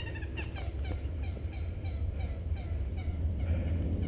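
A waterfowl-call sound effect edited in: a rapid run of short calls, about four a second, fading near the end. Underneath is a low rumble of wind on the microphone.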